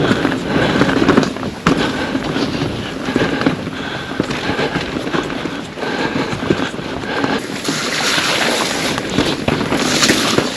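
Pivot Firebird 29 mountain bike descending a rough trail: tyres crunching over dirt and rocks, with a dense, continuous clatter of knocks and rattles from the bike.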